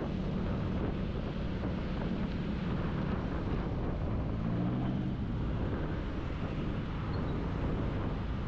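Riding noise from a Yamaha Aerox v2 scooter: the engine running under steady wind rush on the helmet microphone, with a pitched engine note coming up briefly around the middle.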